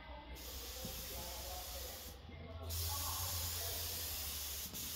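Air-fed paint spray gun spraying clear coat: a steady hiss that starts just after the beginning, breaks off briefly about two seconds in as the trigger is let go, then runs on steadily.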